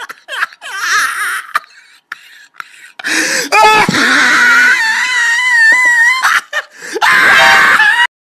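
A loud, high-pitched wavering wail starts about three seconds in and lasts about three seconds, followed by a shorter loud burst near the end.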